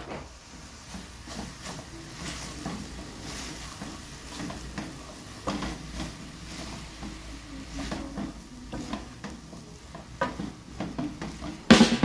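A spatula stirring and scraping soy mince and sweetcorn around a metal pot, with irregular scrapes and knocks over the sizzle of the mince frying.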